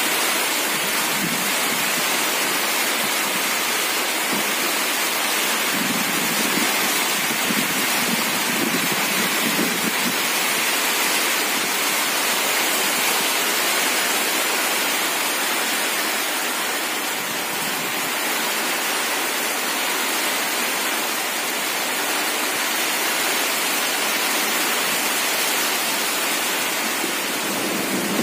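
Steady rain falling, with drops striking an umbrella held overhead.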